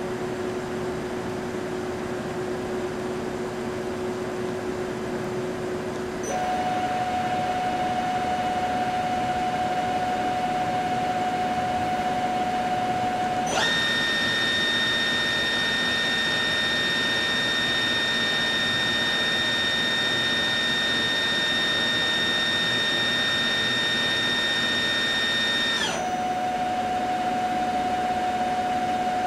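Spindle of a Prodis PDL-1500L vertical machining center running at set speeds, giving a steady whine. The pitch jumps up about six seconds in, jumps much higher about halfway through, then drops back to the middle speed near the end.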